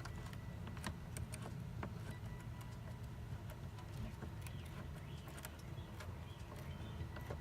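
Scattered light clicks and taps of plastic and metal as intake hoses and clamps are worked loose in a car's engine bay, over a steady low hum.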